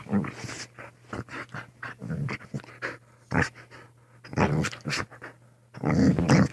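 Pet dog making rough-play noises: short growls and panting in about half a dozen uneven bursts.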